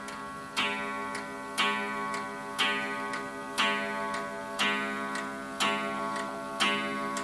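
Antique Vienna Regulator wall clock ticking steadily. Background guitar music plays over it, with a chord struck about once a second.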